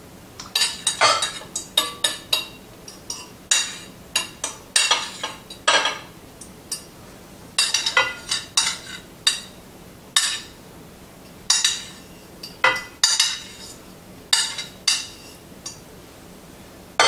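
A spoon clinking and scraping against a pot and serving bowls in irregular taps while cooked bulgur wheat is spooned out and divided between two bowls.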